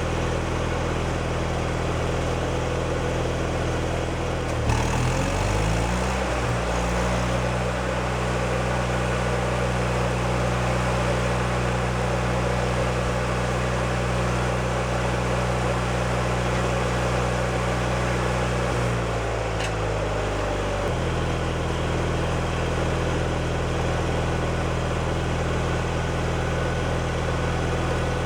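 Miller Trailblazer engine-driven welder running steadily. About five seconds in it revs up to welding speed as the arc is struck. It holds there under load for about fifteen seconds, then drops back to idle.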